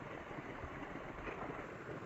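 Engine of a two-wheel walking tractor running steadily.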